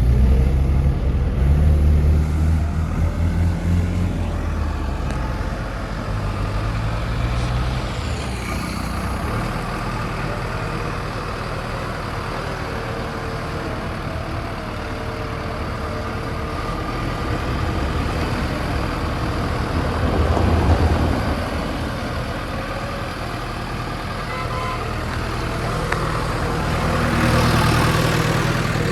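Heavy diesel engine running steadily, swelling louder briefly near the start, about two-thirds of the way through, and again near the end.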